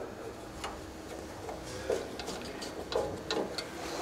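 Screwdriver turning a Phillips screw back into a pellet grill's sheet-metal auger housing: irregular small metallic clicks and scrapes, coming more often in the second half.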